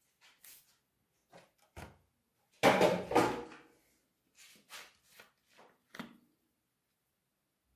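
Handling noises as a cardboard cornstarch box is picked up and moved off the work surface: a string of short knocks and rustles, the loudest a longer rustling clatter about three seconds in.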